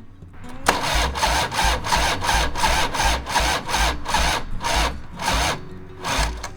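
Starter cranking a Harley-Davidson Fat Boy's Evolution 1340 V-twin in rhythmic pulses, about three a second, for some five seconds, then one short burst of cranking. The engine does not catch; it is hard to start after winter storage.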